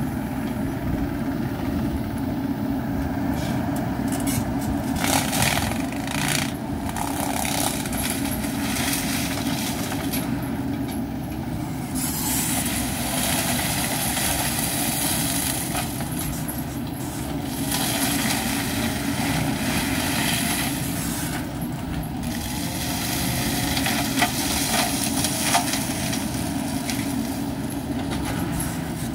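Wacker Neuson ET65 mini excavator's diesel engine running under load while its hydraulic forestry mulcher spins and shreds brush, with repeated stretches of harsher shredding noise and a few sharp cracks near the end.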